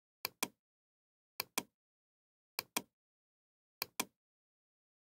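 Computer mouse button clicking four times, about once every 1.2 seconds, each click a quick pair of sharp clicks (press and release), as checkboxes on a web form are ticked and the submit button is pressed.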